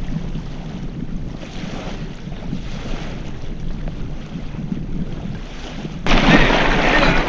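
Wind buffeting the microphone over small waves lapping on a sandy shore. About six seconds in, the wind noise suddenly becomes much louder.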